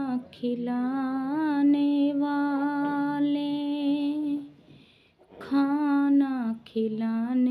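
A woman singing unaccompanied in slow, long-held notes with a slight waver, broken by a pause of about a second in the middle.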